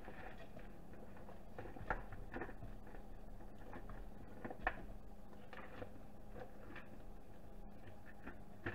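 Pre-cooked frozen crawfish being tipped from a bowl into a stockpot of hot seasoned water: scattered soft plops and clicks as they drop in, the sharpest about two and five seconds in, over a steady low hum.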